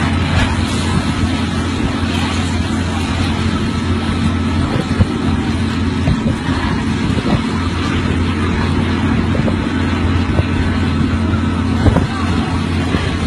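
An engine running steadily, with a few short knocks.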